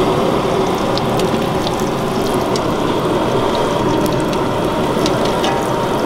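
Batata vadas deep-frying in a large kadhai of hot oil: a loud, steady sizzle full of fine crackles.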